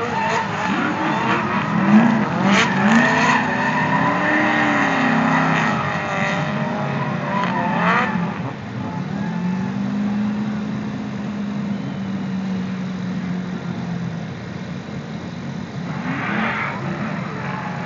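Drift cars sliding through a corner: engines revving hard with the pitch swinging up and down, over tyre squeal. About eight seconds in, one engine revs up quickly, then holds a steady note for several seconds before dropping back into the general din.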